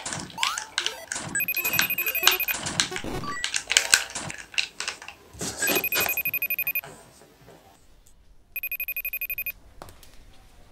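Laptop ringing with an incoming video call: a rapid electronic trill in three bursts of about a second each. Through the first few seconds it plays over dense crackling, clicking digital noise.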